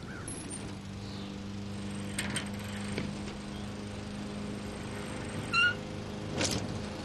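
Steady low motor hum. A short, high pitched chirp comes about five and a half seconds in, and a brief whoosh follows about a second later.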